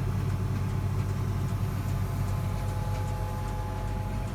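Case IH 1680 combine running steadily under load, heard from inside the cab: a constant low engine drone with a faint thin whine from the machinery coming in about halfway through.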